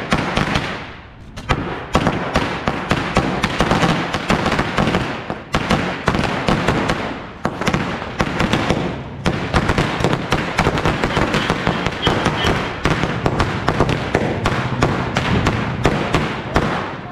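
Diwali firecrackers going off: a fast, irregular run of sharp bangs and pops over a steady crackling hiss, easing briefly a few times and starting up again.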